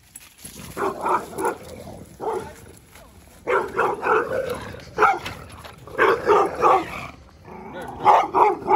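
Pit bulls barking in runs of rapid barks that recur every second or two, squaring off across a wooden fence.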